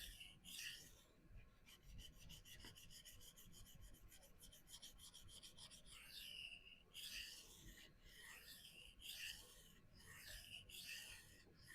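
CPM-S30V steel knife blade stroked freehand across a vitrified diamond sharpening stone, a dry scraping hiss with each pass, grinding to even out an asymmetric edge bevel. For a few seconds near the start the strokes come quick and short, about eight a second; after that come slower, longer passes.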